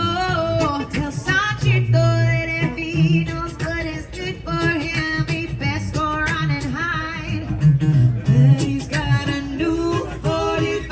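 Live acoustic guitar playing with a voice singing over it, in a song performed as a duo.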